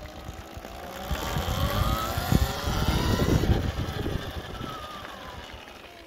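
Talaria Sting electric dirt bike's motor and drivetrain whining while riding, the pitch rising as the bike speeds up to about three seconds in and then falling as it slows, with a low rumble underneath that is loudest in the middle.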